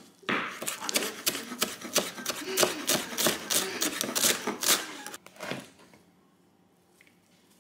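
Kitchen knife chopping fresh coriander on a wooden cutting board: quick, even knocks of the blade on the board, about four a second, stopping about five seconds in, with one last knock shortly after.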